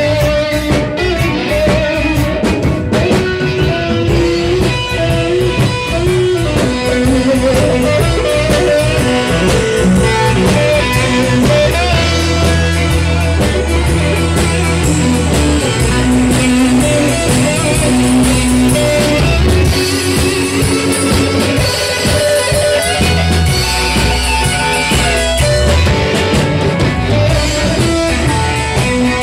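Live rock band playing an instrumental stretch: guitar over a drum kit and strong low notes.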